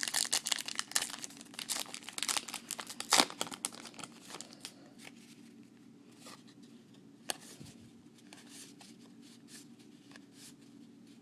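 A trading card pack's wrapper being torn open and crinkled, a dense crackle for about four seconds, loudest about three seconds in. After that come only faint rustles and a single sharp click as the cards are handled.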